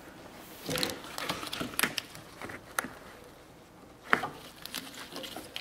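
A plastic brake fluid reservoir and its metal locking pin being pushed and worked by hand into place on the master cylinder grommets: scattered small clicks, scrapes and knocks, with one sharp click about four seconds in.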